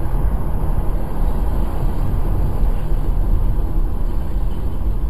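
Steady road and wind noise inside a car cruising at about 70 km/h on a highway, picked up by the dashcam's microphone, with a heavy low rumble.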